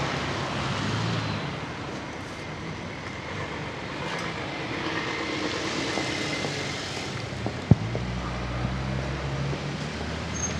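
Cars driving past on a wet street, their tyres hissing on the rain-soaked road, one swelling and fading about halfway through. A single sharp knock comes about three-quarters of the way in, followed by a low engine rumble.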